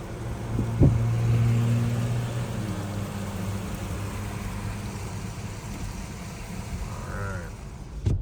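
Car engine and road noise heard from inside the cabin, with wind rushing around the car. There is a sharp knock about a second in, and the engine's steady low hum is loudest for the next couple of seconds, then settles.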